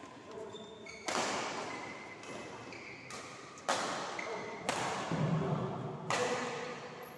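Badminton rally: four sharp racket hits on the shuttlecock, echoing in the hall, spaced one to two and a half seconds apart.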